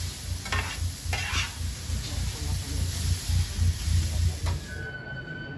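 Yakisoba noodles sizzling on a hot flat-top griddle, with a few scraping strokes as the noodles are turned. Near the end the sizzling fades out and music comes in.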